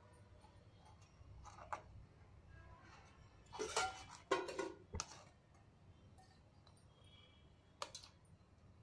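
Steel spoon scraping and clinking against a strainer and bowl as pomegranate pulp is pressed through to squeeze out the juice. Scattered scrapes and clinks, busiest about halfway through, with another couple near the end.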